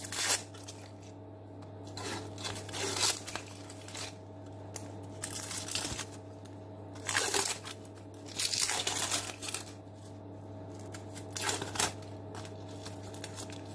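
Dry, papery skin of a brown onion crackling and tearing as it is peeled off by hand, in short irregular bursts.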